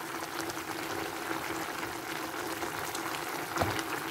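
Pork stew with potatoes and carrots simmering in a pot, its sauce bubbling and crackling steadily over a steady hum. There is one soft knock about three and a half seconds in.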